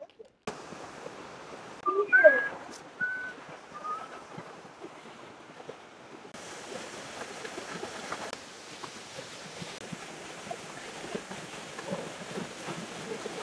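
Steady rushing noise of falling water from a snow-fed waterfall and creek, in several cut-together stretches. About two seconds in, a few short sliding whistle-like notes sound over it.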